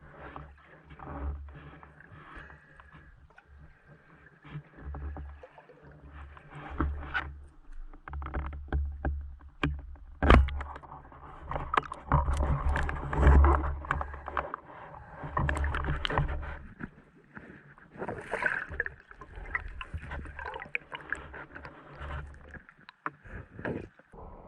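Water sloshing and gurgling against a camera, with a steady low rumble and many scattered knocks and clicks, busiest in the middle.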